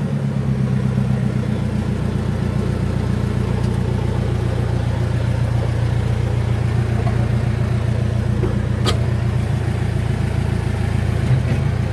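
JCB backhoe loader's diesel engine running steadily, heard from the operator's cab. There is one sharp click about nine seconds in.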